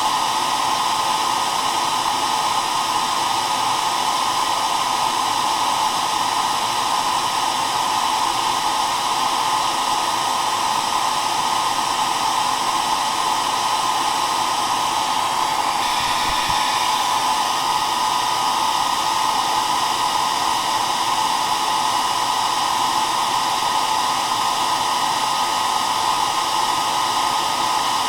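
Hair dryer running continuously with a steady airy whoosh and motor hum, strongest in the middle range. The tone shifts slightly for a moment about sixteen seconds in.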